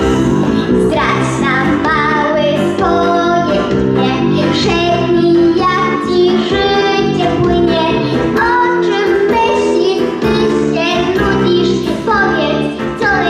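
A young boy singing a song into a microphone over an instrumental backing track with held chords and a steady beat.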